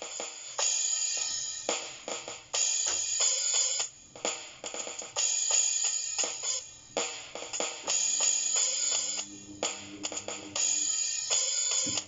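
Electronic drum-kit samples from a PocketDrum 2 virtual drum set played with motion-sensing sticks: a busy hi-hat pattern alternating between open washes and closed strokes, with cymbal and bass drum hits. A low steady hum comes in about eight seconds in.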